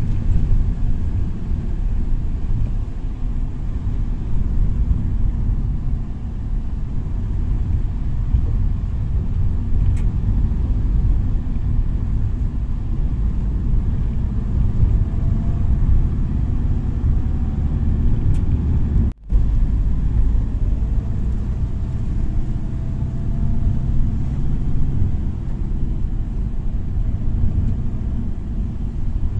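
Steady low rumble of a passenger vehicle's engine and road noise heard inside the cabin on the move. It cuts out for an instant about two-thirds of the way through.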